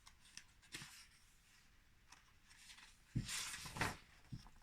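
Faint handling noises: a few light clicks, then a short stretch of rustling about three seconds in.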